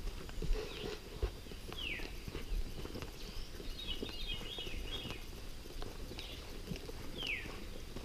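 Footsteps crunching and scuffing along a dirt path, while songbirds call with a few short downward-sliding whistles and a burst of fast chattering trills.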